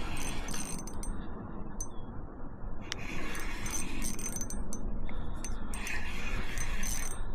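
Spinning reel being cranked in spells while a hooked bass is played in, its gears whirring, with scattered sharp ticks over a steady low rumble.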